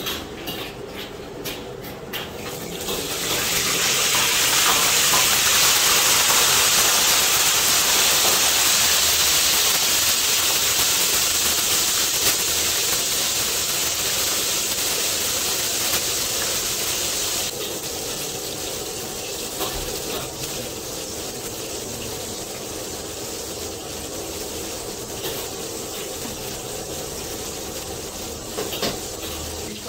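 A whole floured gurame fish deep-frying in a wok of hot oil. After a few light clicks, the oil breaks into a loud sizzle about three seconds in as the fish goes in. Past the middle it settles to a steadier, quieter sizzle.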